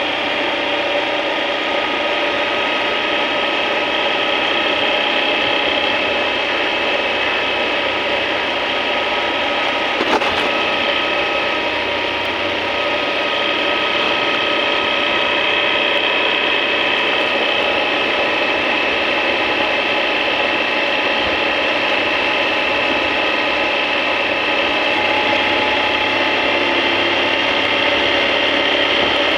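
Motorcycle running at a steady cruise: engine and drivetrain whine with several held tones over wind and road noise, with a single click about ten seconds in.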